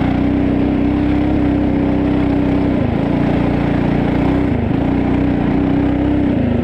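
Coleman CT200U mini bike's single-cylinder engine running at steady high revs under load up a steep, rocky hill. The revs dip briefly twice, about three seconds in and again near five seconds, then pick back up.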